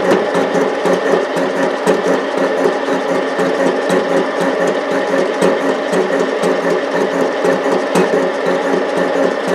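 TV-4 school lathe running steadily while machining a steel lathe cutter, a motor hum with fast, even ticking from the cut.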